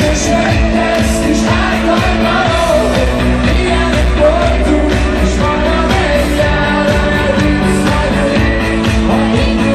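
Loud live rock band with a singer, heard from within the crowd: heavy bass and drums under sung vocals.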